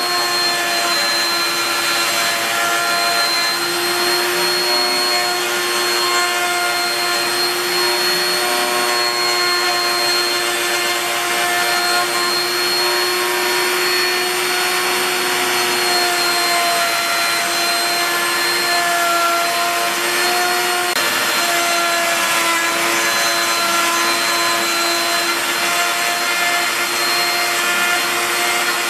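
Wood router on a home-built CNC machine running steadily with a high motor whine, its bit cutting a sign into a pine board.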